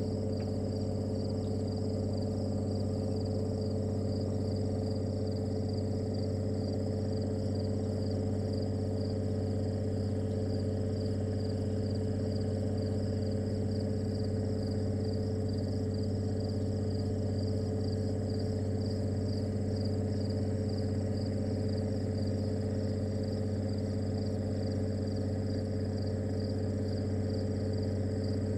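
Steady low electrical hum on the webcam's audio feed, made of several held tones, under a continuous high, rapidly pulsing trill of insects. There are no calls or sudden sounds from the perched hawk.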